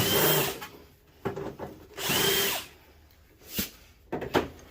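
Cordless drill with a hex bit backing screws out of a CRT TV's rear casing, running in two short bursts of about half a second each with a motor whine that rises and falls. Small clicks come between the bursts.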